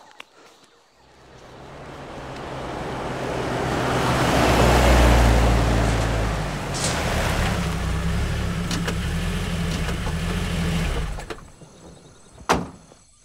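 Open-top jeep driving up, its engine growing louder to a peak about five seconds in, running steadily, then stopping about eleven seconds in. A single sharp click follows near the end.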